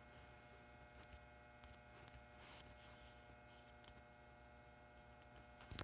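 Near silence with a steady low hum, broken by four faint taps about half a second apart as a word is typed on a phone's touchscreen keyboard, and one slightly louder tap near the end.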